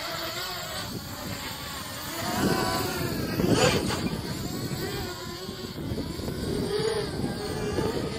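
Racing quadcopter's four brushless motors and propellers whining, lifting off and flying past with the pitch rising and falling as the throttle changes. The whine is loudest a few seconds in, with a quick swoop in pitch as it passes.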